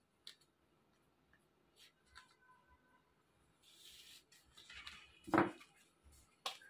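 Tarot cards being handled: cards swept and slid across a cloth table cover with a soft swish, then a few light taps and clicks of the deck, the sharpest a little past five seconds in.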